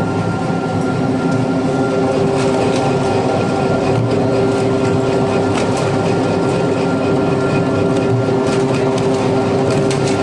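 A large electric grinding machine running steadily, its motor giving a constant hum with a few steady tones, with scattered sharp clicks and knocks over the top.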